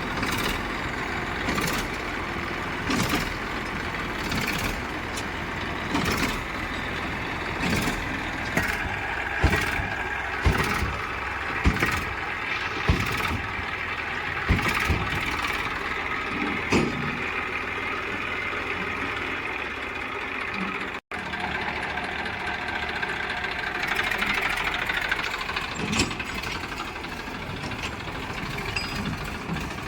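Heavy diesel engine running steadily, with a string of sharp knocks and clanks, roughly one a second, through the first half. The sound drops out for an instant about two-thirds of the way in.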